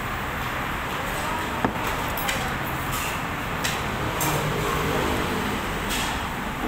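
Steady background rumble with a sharp knock about a second and a half in, a drinking glass set down on the table, followed by a few light clinks of a metal spoon in a ceramic bowl of rice porridge.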